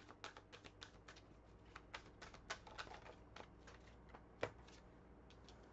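A deck of tarot cards being shuffled by hand: a faint, irregular run of soft clicks and slaps, several a second, with one sharper snap about four and a half seconds in.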